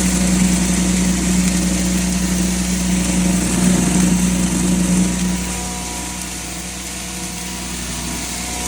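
A 7.5 hp poultry-feed grinder (maize grinder) running under load, a steady low hum with a wide grinding hiss over it. The hum weakens and the sound softens a little over halfway through, then builds again near the end.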